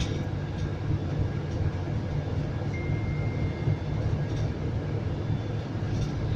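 Cabin noise of a Scania coach bus on the move: a steady deep engine and road rumble with a few light rattles. A faint high beep lasts about a second near the middle.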